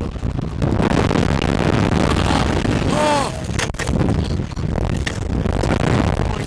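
Heavy wind buffeting and rumbling on the onboard camera microphone of a Slingshot reverse-bungee ride capsule in flight, with a short high-pitched yell about three seconds in.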